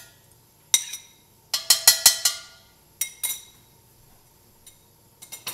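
A metal utensil clinking and tapping against a ceramic bowl as the anchovy butter is scraped out of it into a pot. Sharp ringing clinks: one about a second in, a quick run of five or six around two seconds, two more a second later, and a few light taps near the end.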